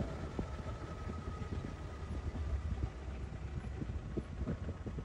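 Vehicle engine running as a steady low rumble, with scattered small knocks and rattles.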